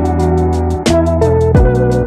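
Background music with a steady beat: a kick drum about twice a second, regular hi-hats, and sustained bass and melody notes.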